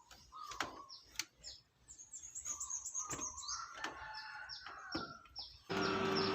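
Birds chirping, one repeating quick, high, falling notes over and over, with a few sharp clicks in between. Near the end a louder, denser sound with a steady hum suddenly comes in.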